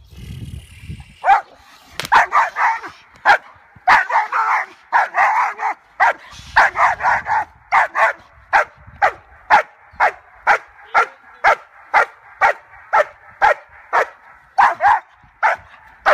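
German Shepherd barking repeatedly. It starts with quick volleys of barks, then settles into a steady rhythm of about two barks a second.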